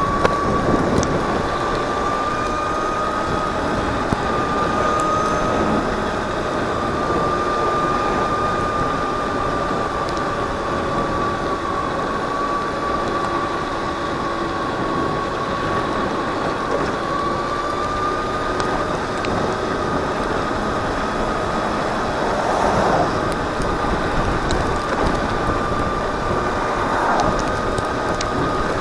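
Landmoto electric motorcycle riding along: a steady high motor whine that drifts slightly in pitch with speed, over a constant rush of wind and road noise.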